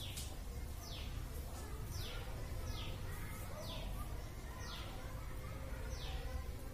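A bird calling over and over, each call a short high note sliding down in pitch, about once a second, over a low steady hum.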